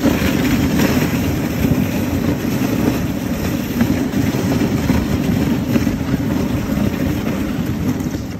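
Dog sled running over a packed snow trail behind a husky team: a steady rumble and scrape from the runners and the rattling sled.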